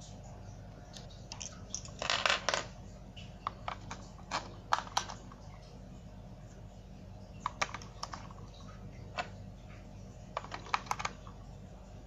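AA batteries being pushed into the spring contacts of a plastic toy truck's battery compartment, with hard plastic handling: sharp clicks and short rattling clusters, the loudest about two seconds in and another group near the end.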